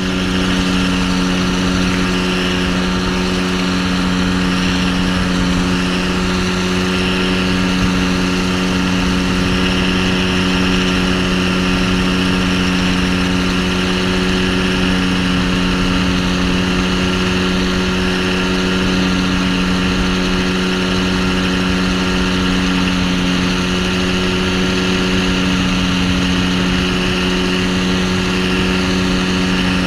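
Flex-wing microlight trike's engine and propeller running steadily in level cruise: a constant, unchanging drone, with wind noise rushing over the microphone.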